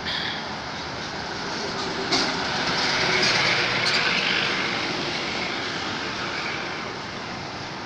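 A vehicle passing by: a steady rushing noise swells to a peak a few seconds in and then fades away, with a few sharp clicks near the loudest part.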